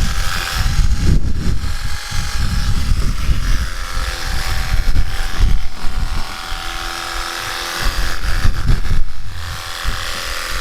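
Cheap battery-powered handheld pressure washer running and spraying, its pump drawing water up from a watering can, with an irregular low rumble throughout.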